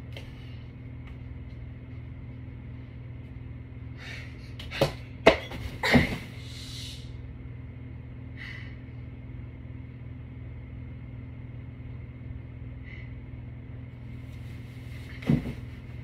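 Dull thumps and bedding rustle as a body lands on a mattress, three in quick succession about five seconds in and one more near the end, over the steady low hum of a running ceiling fan.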